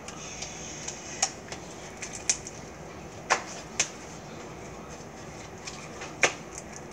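Slime being stretched, squeezed and worked by hand, giving sharp, irregular clicks and pops, about five louder ones among smaller ticks.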